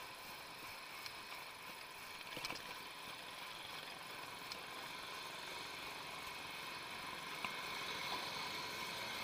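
Steady rush of wind and road noise from riding a bicycle through city traffic, with a faint steady whine underneath and a few light clicks. It grows slightly louder toward the end.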